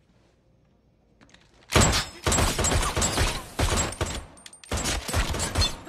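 Rapid handgun fire: a dense burst of many shots begins about two seconds in, with the bullets bouncing off a bulletproof target. After a brief pause, a second burst follows near the end.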